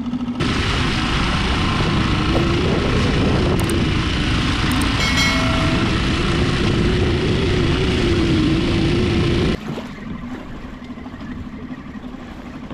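Small outboard motor on a fishing kayak running steadily under way, its drone wavering slightly in pitch over the rush of water. About nine and a half seconds in it drops suddenly to quieter wind and water.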